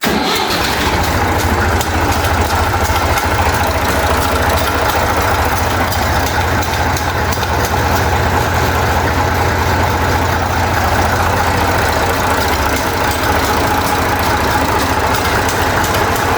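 Massey Ferguson 35X tractor's diesel engine running steadily, freshly filled with new SAE 30 oil after an oil and filter change.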